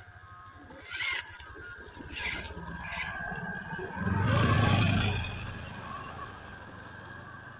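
WPL C24 RC crawler truck working its way over timber logs: tyres knock and scrape on the wood about one, two and three seconds in, with a louder, lower stretch about four seconds in lasting roughly a second.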